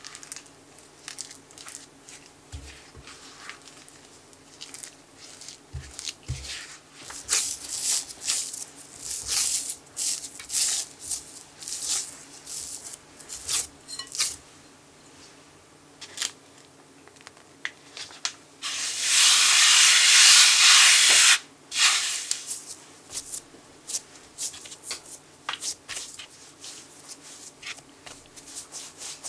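Mixing rice flour into mashed sweet potato dough in a glass bowl and kneading it by hand: a run of short scraping and rubbing strokes. About two-thirds through, a louder steady hiss lasts about three seconds.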